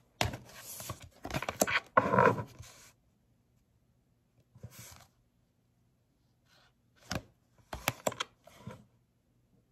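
Tarot cards being shuffled: a rapid fluttering clatter of card edges for about three seconds. Then a few short slaps and slides as single cards are drawn and laid down on the table, the last ones a little before the end.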